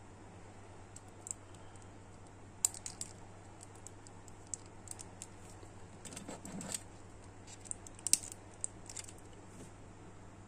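Small hard-plastic clicks and taps from an action figure's parts and joints being handled and posed, irregular, with a few sharper clicks about two and a half seconds in and near eight seconds. A faint steady low hum runs underneath.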